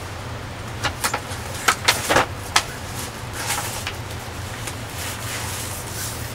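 Steady rushing of the Ganga river in the background, with a quick cluster of sharp clicks and knocks about one to two and a half seconds in.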